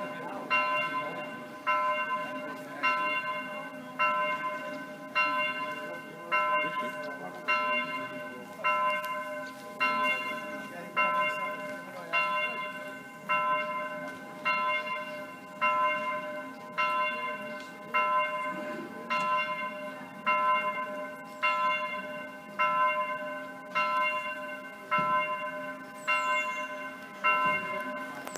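Electronic simulated church bell sounding through the church's loudspeakers. The same single bell tone strikes over and over, about once every 1.2 seconds, and each stroke rings on and fades before the next.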